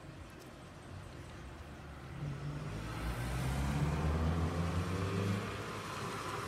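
A motor vehicle passing by: a low engine hum with tyre hiss that swells about two seconds in and fades after about five.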